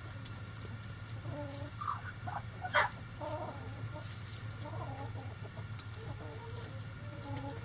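Backyard hens clucking softly in short, scattered calls, with one short, sharp, louder sound about three seconds in.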